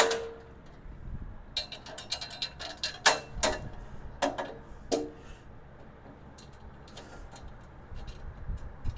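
Sharp metallic clicks and clinks of a bolt being fitted into the steel tool cart's parts, several in quick succession, a few ringing briefly. After about five seconds they become fewer and fainter.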